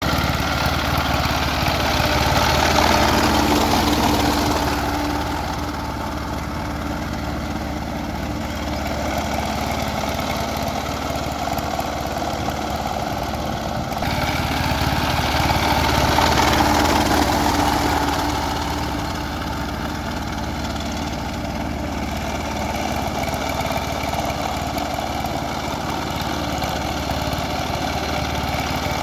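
Two-wheel power tiller's single-cylinder diesel engine running steadily as it puddles a flooded paddy on cage wheels, swelling louder twice.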